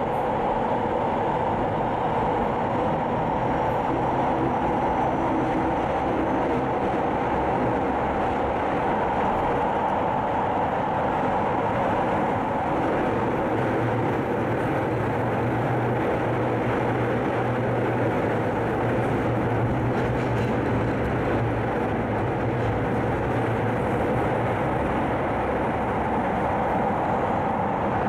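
Keihan 800 series train running steadily through the Tozai Line subway tunnel, its wheels on the rails making an even running noise. A low steady hum rises under it from about 13 to 24 seconds in.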